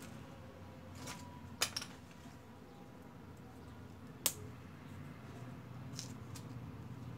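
Hands handling and fitting cardboard pieces together, making a few small sharp clicks and taps: a close pair about a second and a half in, a single sharper one about four seconds in, and fainter ones later. A steady low hum runs underneath.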